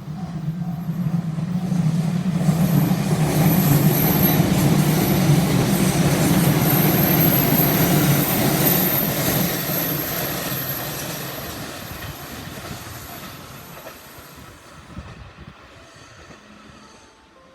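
Electric commuter train passing at speed. Its running noise builds over the first two seconds, stays loud for about seven seconds and fades away by about fifteen seconds in. A level-crossing bell dings in an even rhythm at the very start before the train drowns it out.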